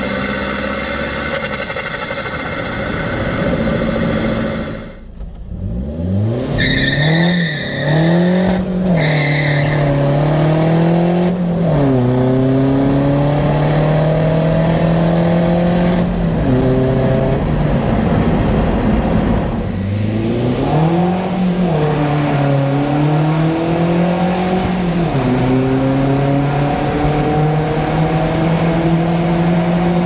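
Fiat Doblò's 1.3 Multijet diesel with a big Garrett 1549 turbo, accelerating hard through the gears. The engine note climbs and falls back at each upshift: twice in quick succession, then a stretch at steady revs, then more shifts partway through, with a brief high whistle during the first pulls. The engine is under about 2 bar of boost.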